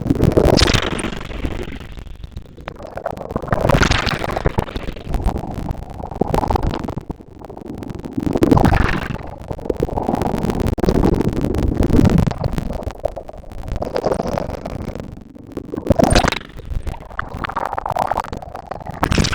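Ocean waves breaking on a beach and washing up the sand, in repeated swells of surf noise every few seconds, with a steady low rumble underneath.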